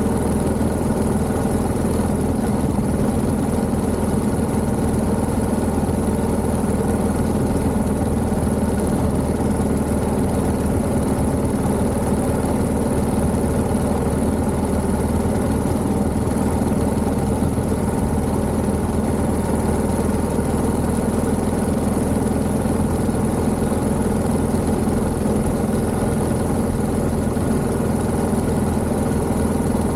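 1929 Méray motorcycle's JAP 600 single-cylinder engine running steadily at an even speed, with no revving or change in pitch.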